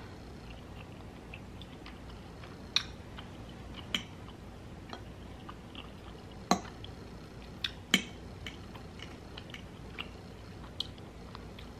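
Close-up chewing of a mouthful of food with small wet mouth sounds. There are about six sharp clinks of a metal fork against the plate, spread through.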